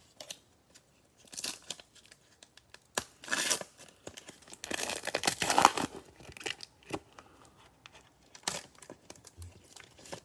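Cellophane wrapper of a trading-card cello pack being torn open and crinkled, in several separate bursts, loudest about five seconds in, with lighter crinkles afterwards.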